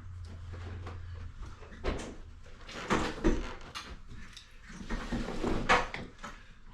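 Several scattered knocks and clunks, with a low hum in the first second.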